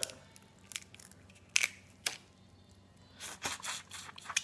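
Boiled crawfish shell being pulled apart by hand, with a few sharp cracks and clicks. About three seconds in comes a longer stretch of sucking as the juice is drawn from the head.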